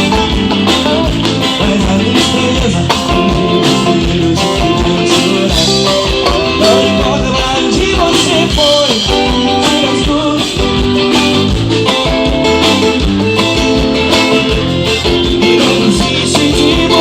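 Live gospel band playing: guitar, bass and drums with a steady beat.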